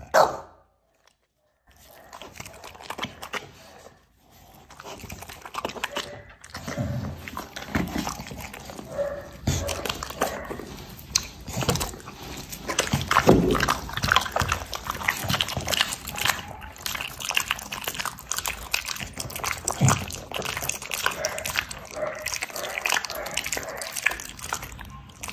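A dog chewing raw chicken: an irregular stream of chewing and lip-smacking noises, starting after a moment of near silence.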